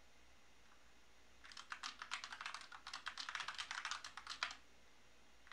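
Typing on a computer keyboard: a quick, even run of keystrokes lasting about three seconds, starting about a second and a half in.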